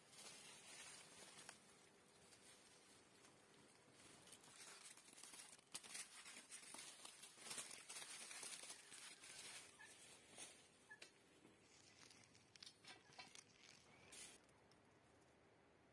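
Faint rustling and crackling of bean vines and leaves as green beans are picked by hand, with small snaps and clicks that are thickest in the middle.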